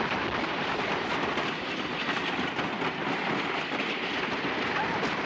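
Wooden roller coaster train running along the track: a steady rattling rumble of the cars on the rails.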